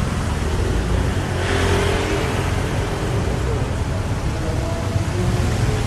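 Road traffic: a steady low rumble of passing vehicles, with a louder rush of noise about one and a half seconds in that lasts about a second.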